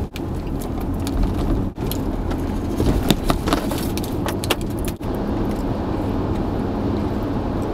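Steady low rumble of a car's engine and tyres heard from inside the cabin while driving, with scattered light clicks and jingling rattles on top.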